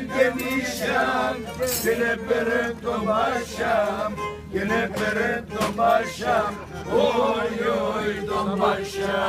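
Group of men singing a folk song together, voices overlapping, over a steady held instrumental tone.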